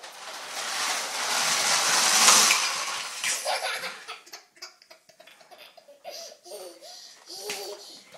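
A loud rattling rush of plastic toy vehicles pushed fast across a tile floor, then a toddler laughing in short bursts.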